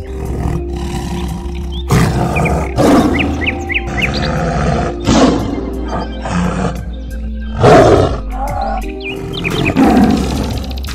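Tiger roaring and growling several times, a couple of seconds apart, over steady background music.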